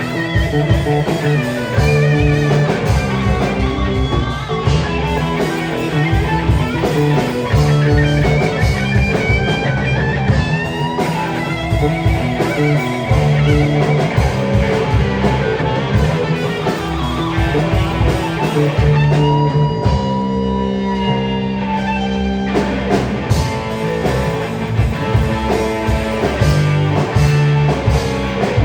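Live rock band playing an instrumental passage: electric guitar lead with bent, sustained notes over bass and drum kit.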